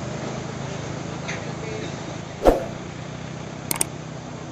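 Steady low running of a Fuso crane truck's idling diesel engine. About halfway through comes a sharp pop, and near the end a quick double mouse-click: sound effects of an on-screen subscribe-button animation.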